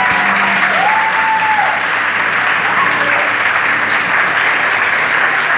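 A large group of students clapping and cheering, with one voice holding a cheer about a second in.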